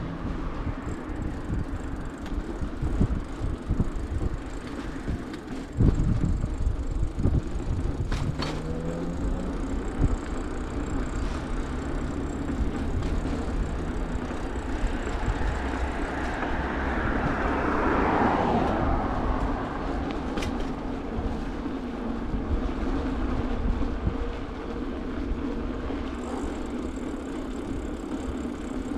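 Bicycle riding over paved surface: a steady rumble and rattle of the tyres and frame, with a few sharp knocks from bumps between about six and ten seconds in. A car passes near the middle, a whoosh that swells and fades about eighteen seconds in.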